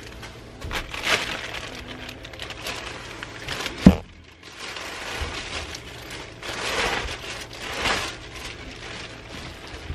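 Plastic bubble wrap and packaging crinkling and rustling as a belt is unwrapped, with one sharp thump just before four seconds in.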